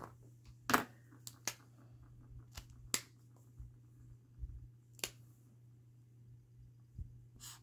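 Irregular light clicks and taps of small craft supplies, such as paint bottles and clay tiles, being picked up and set down on a work table, over a low steady hum.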